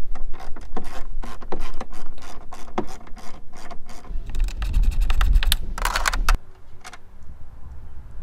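Hand socket ratchet clicking rapidly as an 8 mm bolt is backed out. A low rumble and a louder clatter come in between about four and six seconds in, and the clicking stops a little after six seconds.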